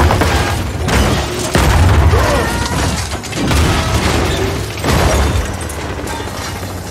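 A car crashing and rolling over on rocky ground: five or so heavy impacts about a second apart, with crunching, scraping metal and shattering glass, dying away near the end.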